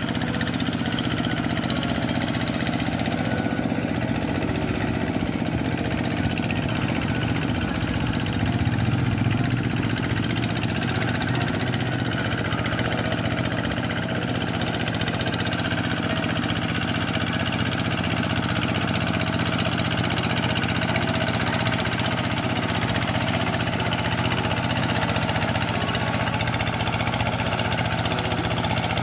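Two-wheel hand tractor (rice-paddy power tiller) with its single-cylinder diesel engine running steadily under load as it ploughs a flooded paddy.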